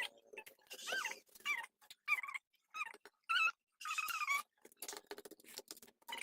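A dog whimpering: a string of short, high whines, one after another with brief gaps between them.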